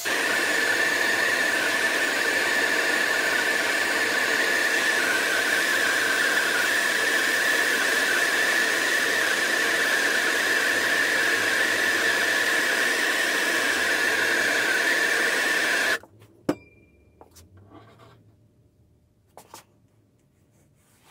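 Gas blowtorch burning steadily with a loud hiss and a steady high tone, heating the billhook's steel tang red-hot. The flame cuts off suddenly about 16 seconds in, followed by a sharp click and a few faint knocks.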